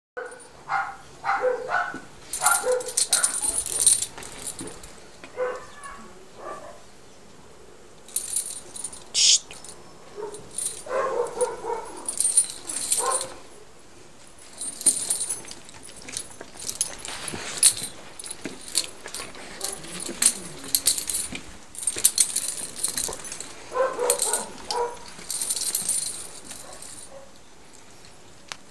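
A dog giving short yelps and whines in several bouts, each a second or two long. Between them come recurring bursts of high jingling from its collar and the trailing leash clip.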